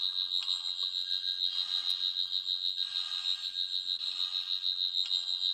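A 14th Doctor sonic screwdriver toy by Character Options playing its fifth sound effect, triggered by five presses of the button. It is a high electronic tone pulsing quickly, the toy's loudest and longest sound effect.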